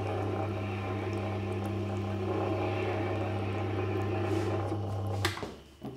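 Tormek wet sharpening machine running with a steady low hum as a curved scraper's bevel is polished against its leather honing wheel with honing paste. The hum stops abruptly near the end.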